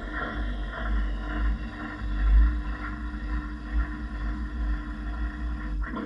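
Washing machine running, heard from inside its drum: a steady motor hum over a heavy low rumble and churning noise. It falls away sharply at the very end.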